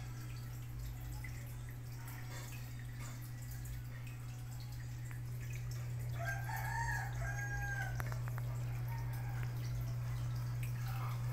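Submersible aquarium pump humming steadily, with water dripping and trickling. About six seconds in, a rooster crows once, a drawn-out call of about a second and a half.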